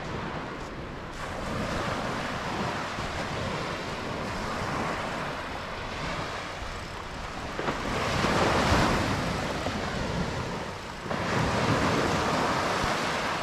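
Small waves breaking and washing up a sandy beach, with wind buffeting the microphone. The surf swells louder about eight seconds in and again near the end.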